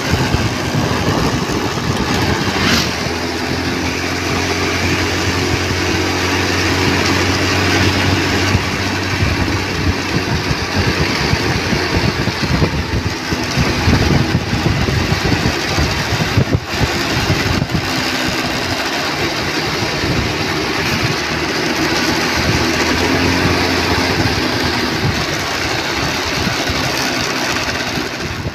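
Motorcycle engine running steadily at road speed, heard from the rider's seat, with a strong wind rush over the microphone.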